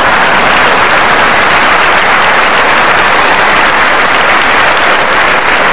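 Studio audience applauding loudly and steadily, reacting to a sketch's punchline.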